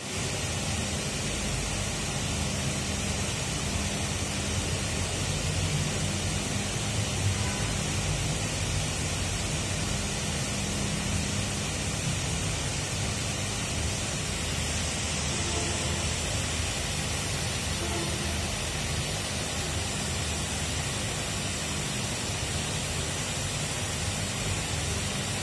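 Steady background noise: an even hiss with a low hum underneath and no distinct events.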